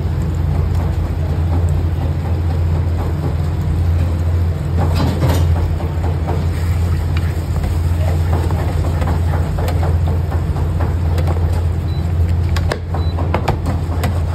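A wooden spatula stirring cheesy macaroni in a metal pan, with short scrapes and clicks against the pan, mostly in the second half. Underneath is a loud, steady low rumble from machinery or traffic.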